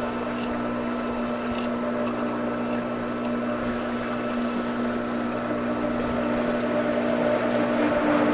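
Swimming pool pump motor running steadily with a low hum, water rushing through the filter plumbing as the system recirculates after the flush; it grows slightly louder near the end.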